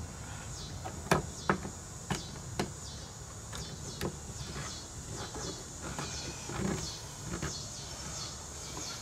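Sharp metallic clicks and taps as a welder's spring-loaded ground clamp is worked onto a thin steel wire frame on a wooden board, mostly in the first four seconds. Faint high falling chirps repeat in the background.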